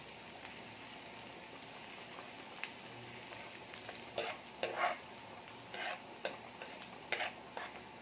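Minced garlic and red onion sizzling in melted butter in a frying pan, with a plastic spoon stirring through it; from about halfway on the spoon knocks and scrapes against the pan about seven times.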